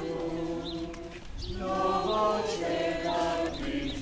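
A congregation singing a hymn together in slow, held notes, with a short pause about a second in before the next phrase.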